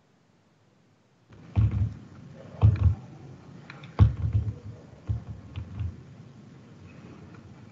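A few short, low thumps with sharp clicks in them, about six over four seconds after a second of dead silence: desk or handling knocks picked up by the microphone.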